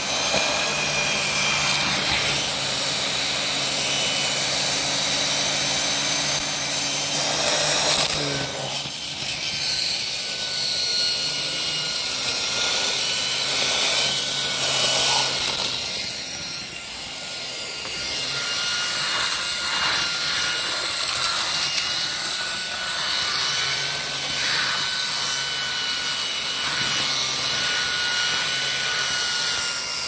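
Miele vacuum cleaner running steadily with a whine, its floor head pushed back and forth over tile, scraping along and sucking up dry plant debris. Its pitch shifts about eight seconds in.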